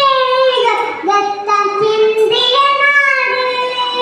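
A young girl singing solo into a microphone, holding long, steady notes with short breaths between phrases.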